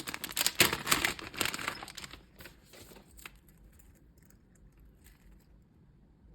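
Packaging crinkling and tearing as a blind bag is opened by hand. The sound is dense for the first two seconds or so, then thins to a few faint, scattered crackles.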